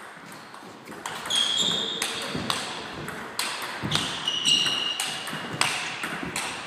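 Table tennis rally: the celluloid ball clicks against rubber paddles and the table in quick alternation, with a few short high squeaks between strokes.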